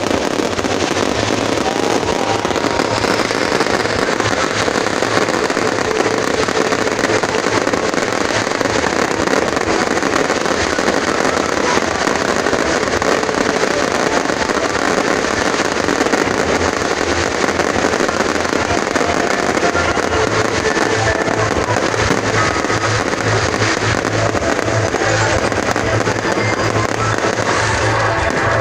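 Fireworks bursting and crackling continuously, mixed with loud music with a pulsing low beat that grows stronger in the last third.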